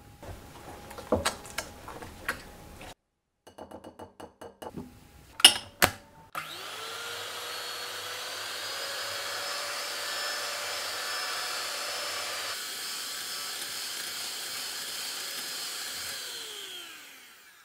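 Dash electric hand mixer whipping egg whites in a glass bowl until foamy: its motor spins up with a rising whine, runs steadily for about eleven seconds, then winds down near the end. Before it starts there are a few sharp clicks and knocks.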